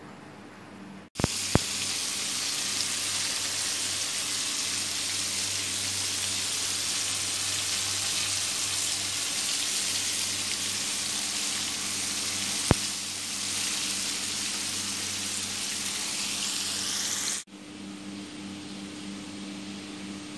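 Battered chicken pieces deep-frying in a pan of hot oil: a steady sizzle with a few sharp pops. It starts suddenly about a second in and cuts off abruptly a few seconds before the end, leaving a low hum.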